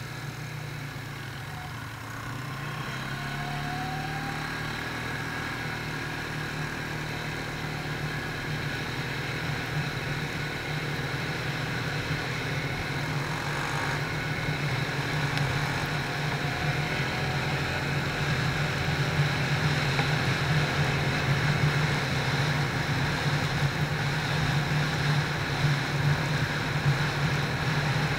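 Quad bike (ATV) engine running steadily under way, with a continuous low drone that grows gradually louder.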